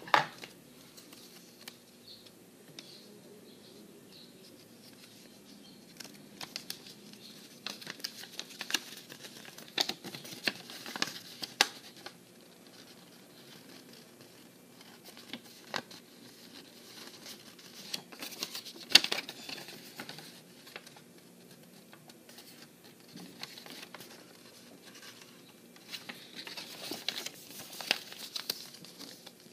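Paper leaflet being handled, unfolded and folded: bursts of rustling and crinkling with quiet pauses between, and a few sharp snaps of the paper, the loudest at the very start and again about two-thirds of the way through.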